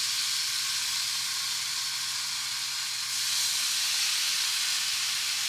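Raw thick-cut bacon sizzling as it is laid into a preheated frying pan, a steady hiss that gets a little louder about three seconds in.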